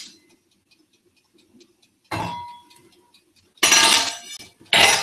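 Stainless steel stock pot and its lid clanking: one ringing clink about two seconds in, then two louder metal clatters near the end.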